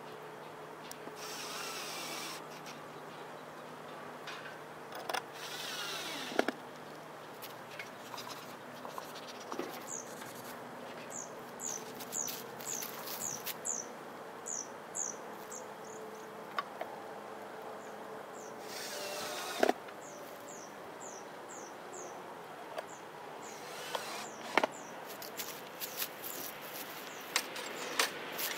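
Cordless drill running in about four short bursts against the wooden hive boxes, with sharp knocks between them. A bird sings series of short falling chirps in between, over a faint steady hum.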